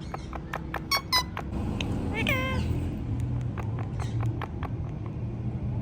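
Indian ringneck parrot imitating a cat's meow: one short call with falling pitch about two seconds in, after a few sharp clicks.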